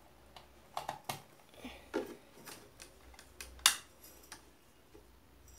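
Scattered, irregular clicks and knocks, one sharper than the rest about three and a half seconds in, from a bar downstairs being opened up.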